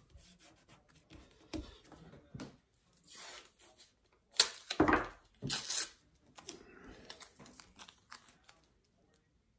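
Masking tape being pulled from the roll and torn, with the loudest rips around the middle, between softer rustling and tapping as strips are handled and pressed down onto paper.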